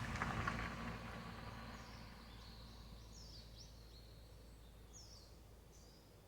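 Outdoor ambience: a steady low rumble and hiss that fades away, with a few short, high, falling bird chirps from about two seconds in.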